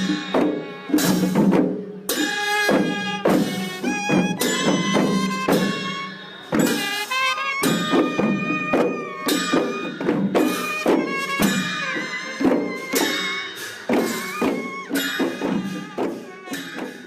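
Traditional Newari Gunla devotional music: drums and clashing cymbals keep a steady beat under a melody played on wind instruments.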